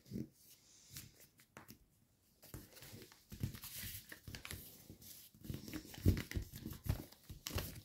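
A sheet of paper being folded and creased by hand: rustling and crinkling with small clicks, sparse at first and busier after a couple of seconds, with a few soft knocks on the tabletop near the end.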